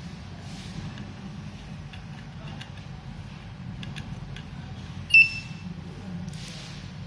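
A single short, high beep from the IoT project board's buzzer about five seconds in, as the board powers up, over a low steady hum.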